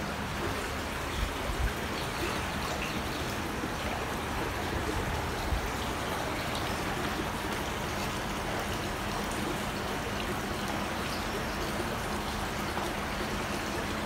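Steady rush of running, trickling water in hatchery tanks, with a couple of light bumps about a second in.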